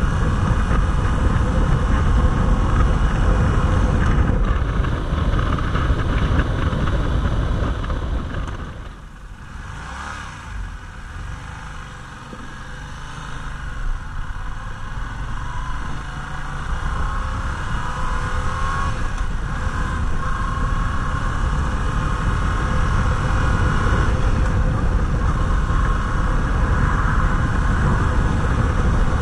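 Yamaha MT-07 parallel-twin motorcycle engine running under way, with heavy wind noise on the microphone. About eight seconds in the sound drops away as the bike slows for a turn, then the engine note climbs as it accelerates and settles back into steady cruising.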